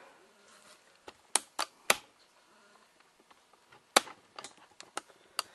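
A series of sharp clicks and knocks of metal tools being handled at a workbench: three close together in the first two seconds, a loud one about four seconds in, then several lighter ticks.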